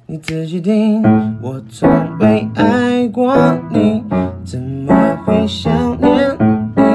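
Background pop music with guitar and keyboard.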